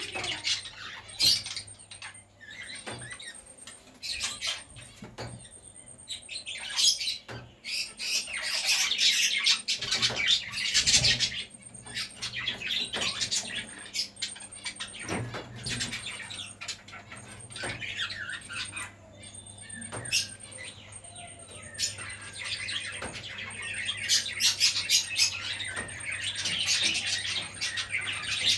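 Small birds chirping and chattering in repeated dense bursts, with quieter stretches between.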